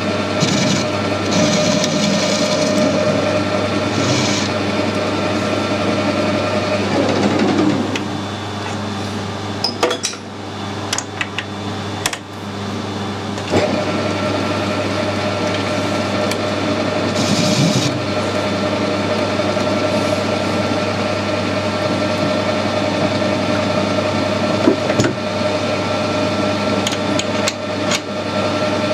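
Gear-head metal lathe running with a steady gearbox hum and whine while a steel bar is turned, with brief hissing patches of cutting. About seven seconds in the drive winds down amid a few clicks and knocks, and it starts up again sharply around thirteen and a half seconds in.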